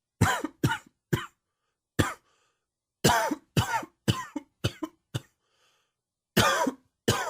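A man coughing in an allergy-triggered fit: about eleven short, sharp coughs in quick clusters (three in a row, a single one, a run of five, then two near the end), with brief gaps between.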